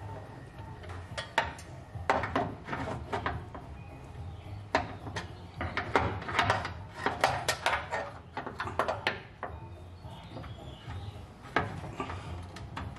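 Steel parking brake cable and linkage of a 1964 Chevrolet Impala clinking and rattling against the frame as they are worked into place by hand. The metal clicks come in irregular clusters, busiest from about two to nine seconds in, and there is one more sharp clank near the end.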